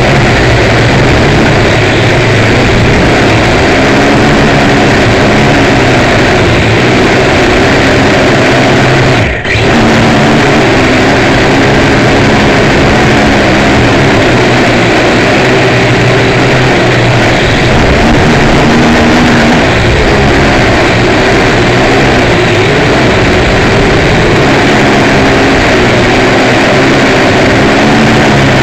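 A small toy camera drone heard from its own onboard camera in flight: a loud steady buzz of its motors and propellers, the pitch shifting up and down as the throttle changes, with wind noise on the microphone. The sound drops out briefly about nine seconds in.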